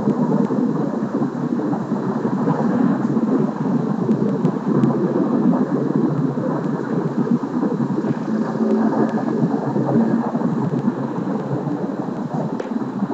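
Steady low rumble of a vehicle in motion, holding even with no clear rise or fall.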